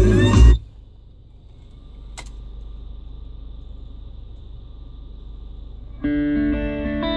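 Music from a Clarion HX D2 car CD player cuts off just after a disc is pushed into the slot. A faint steady hum and a single click follow while the disc loads, and about six seconds in the CD starts playing electric guitar music through the car speakers.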